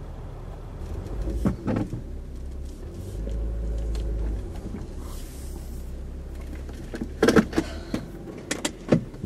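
Low rumble inside a car, swelling a few seconds in, with a couple of knocks early and a quick run of clicks and knocks near the end.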